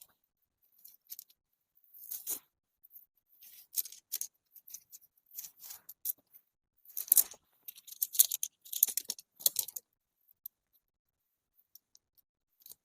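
Rustling and crinkling of camping gear being handled, in irregular short bursts with quiet gaps between, busiest in the middle and dying away near the end.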